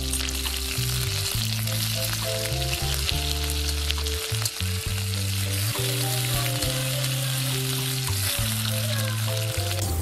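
Oil sizzling steadily as whole small potatoes and shallots fry in an iron kadai, with a metal spatula stirring them now and then. A stepping melody and bass line of background music play under it.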